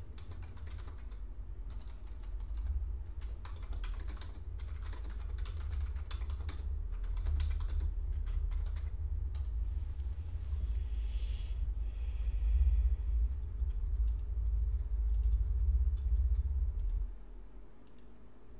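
Typing on a computer keyboard: rapid key clicks for about the first nine seconds, then only a few scattered clicks. Underneath runs a low steady hum that stops near the end.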